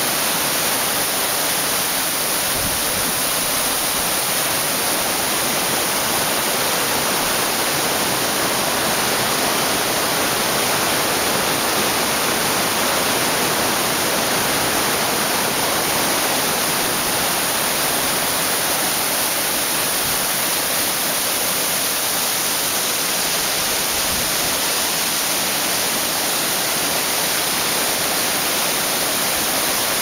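Waterfall and the white-water cascades below it rushing over rock steps: a loud, steady rush of water that does not change.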